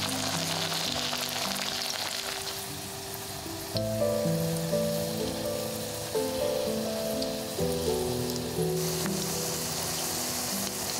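Grated potato sizzling in hot oil in a frying pan, a steady high hiss of frying, over soft background music.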